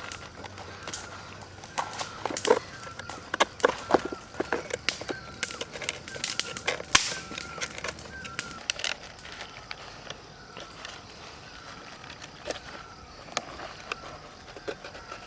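Irregular sharp clicks and knocks, thickest in the first half, over a short chirping call repeated again and again in the background.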